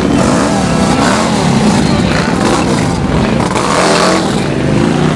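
Motorcycle engines revving, the pitch rising and falling repeatedly, with voices mixed in.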